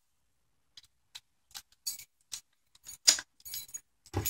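A ring of keys jangling while a gun lock is unlocked with its key: a string of light clinks and clicks, loudest about three seconds in.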